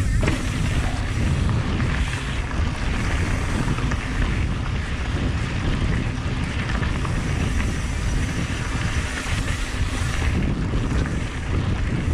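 Wind buffeting the camera microphone over the rumble of mountain bike tyres rolling down a dirt trail at speed: a steady, loud noise heavy in the low end.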